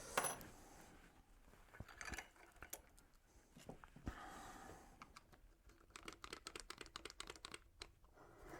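Faint clicks and light rattles of thrust bearings and washers being handled and fitted onto a lathe spindle shaft, with a quick run of clicks in the second half.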